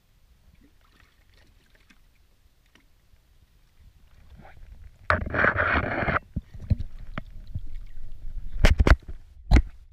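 Water splashing and sloshing at a skiff's side as a hooked shark is brought up alongside, with one loud splash about five seconds in. Several sharp knocks near the end are the loudest sounds.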